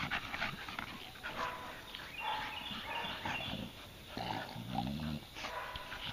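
American Bully dogs playing tug-of-war over a rope toy: scuffling and snuffling with short dog vocalisations, including a few high whines in the middle and a lower growl near the end.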